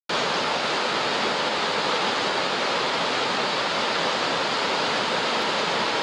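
The cascades of Iguazu Falls rushing, a steady, unbroken wash of falling water.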